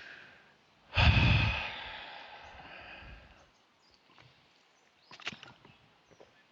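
A man's loud, breathy exhale, blown out through the mouth about a second in and fading away over a couple of seconds, followed by a few faint mouth clicks.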